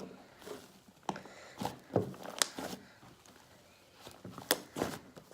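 Fluffy metallic slime being squished and stretched in the hands, giving irregular soft clicks and pops.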